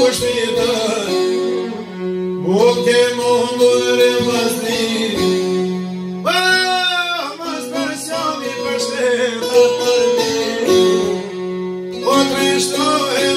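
Albanian folk ballad performed live: a man sings a mournful song over plucked çifteli and sharki with violin, and a steady drone runs under the tune. About six seconds in, the voice rises into a high, ornamented phrase with sliding pitch.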